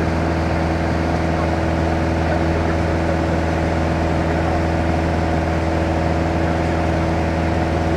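Light touring aircraft's engine and propeller droning steadily in cruise flight, heard from inside the cabin: a constant deep hum with several steady tones and no change in pitch or level.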